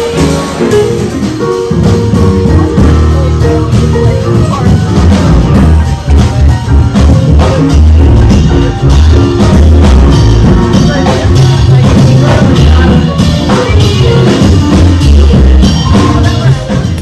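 Music with a steady beat and a strong bass line.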